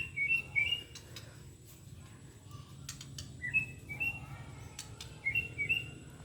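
Young white-rumped shama (murai batu) singing: three short phrases of a few quick chirping notes each, at the start, about halfway and near the end.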